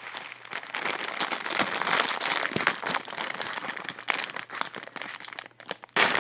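Plastic instant-noodle wrapper crinkling as it is worked open, a dense crackle with many small clicks that eases briefly near the end and then picks up again.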